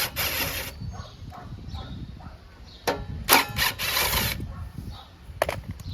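A cordless drill/driver runs in two short bursts, one at the start and a longer one about three seconds in, backing out the Phillips screws that hold the engine's heater box. A sharp click comes near the end.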